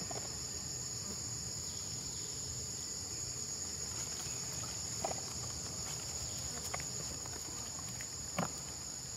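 Steady high-pitched drone of insects, a chorus of crickets or cicadas, with a few faint soft clicks.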